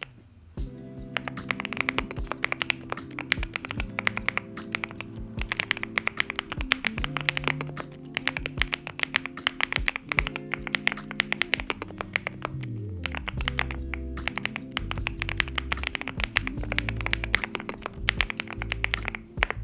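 Steady, fast typing on a NuPhy Gem80 mechanical keyboard with NuPhy Mint linear switches and double-shot PBT mSA keycaps: a dense run of key clacks, with background music and its bass line underneath.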